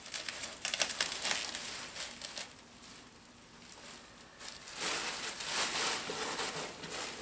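Packing material in a shipping box crinkling and rustling as it is handled. There are crackly bursts over the first couple of seconds, a short lull, then steadier crinkling from about halfway through.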